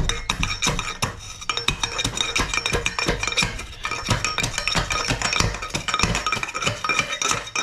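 Steel jack handle repeatedly jabbed down inside a catalytic converter, knocking and scraping against the shell and breaking up the ceramic catalyst substrate. It comes as a fast, irregular run of metallic knocks and clinks, with the steel ringing over them.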